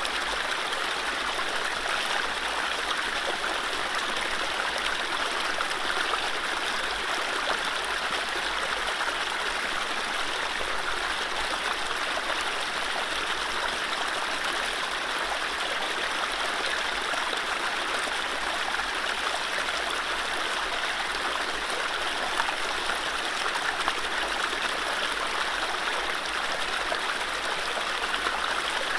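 Mountain stream running over low rapids: a steady rushing and splashing of water, without birdsong.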